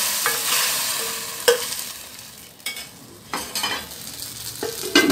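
Hot tempering oil with cumin, garlic and dried red chillies sizzling as it hits the dal, the hiss dying away over the first second or so. Then a handful of sharp metal knocks against the pot, the last the loudest.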